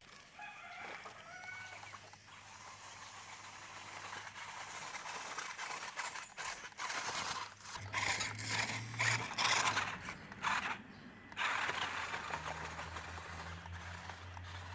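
Mini 4WD RC truck driving over rough ground: a steady low motor hum, with loud scraping bursts of tyres over the surface in the middle.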